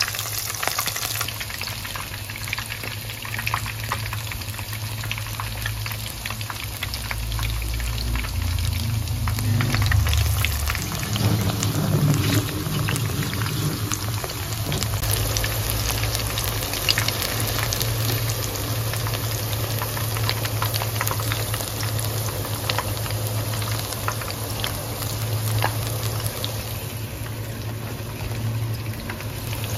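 Battered vegetable fritters deep-frying in hot oil in a wok: a steady sizzle with dense crackling. A steady low hum runs underneath.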